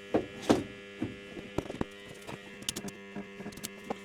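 Stick (arc) welder humming steadily, with irregular sharp clicks and short spits: first attempts at striking an arc.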